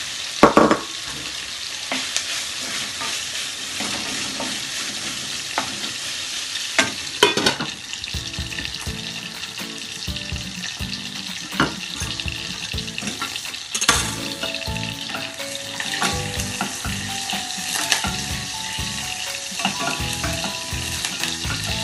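Bacon and mushrooms sizzling steadily in a pan, with a few sharp metal knocks from the pan lid and utensils. A faint tune comes in about a third of the way through.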